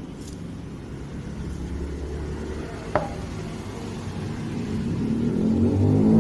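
A motor engine running with a low rumble that grows louder over the last second or two. One sharp click comes about three seconds in.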